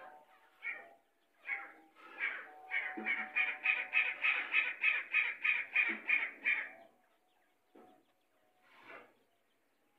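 Grey francolin (teetar) calling: a few separate harsh notes, then a fast, even run of repeated notes at about three a second that lasts some four seconds and breaks off, followed by a couple of faint notes.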